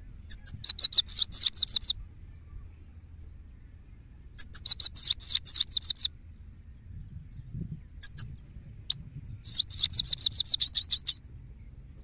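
Male European goldfinch singing: three bursts of rapid, high twittering notes, each lasting about a second and a half, with a couple of short single notes between the second and third bursts.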